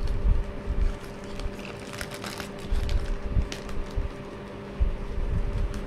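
A yellow paper mailer envelope and plastic wrapping being handled: irregular rustling and crinkling with dull bumps, over a faint steady hum.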